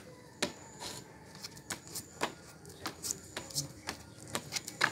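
Playing cards being handled and laid down on a wooden bench: a scatter of light, irregular clicks and snaps.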